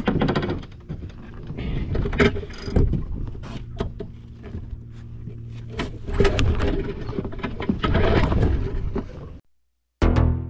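Rubber boots stepping and shuffling on the deck of a small outboard boat, with repeated knocks and clunks against the hull. The sound cuts off suddenly near the end.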